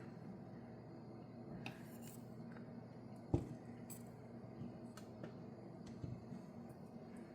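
Kitchen utensils clicking and tapping against dishes or a pan a few times, with one louder knock about three and a half seconds in, over a steady low hum.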